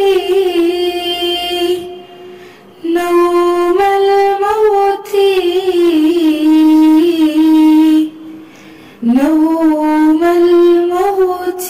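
Solo female voice singing a psalm in long, held, ornamented notes without clear words. She breaks off briefly about two seconds in and again about eight seconds in.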